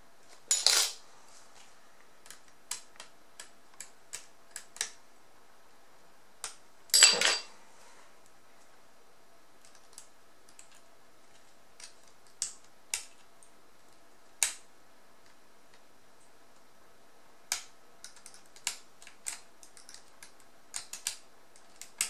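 Metal tweezers clicking and scraping against a small screw and the perforated metal hard-drive caddy in a laptop's drive bay as they work the screw loose. Scattered sharp clicks, with two louder scrapes about half a second in and about seven seconds in.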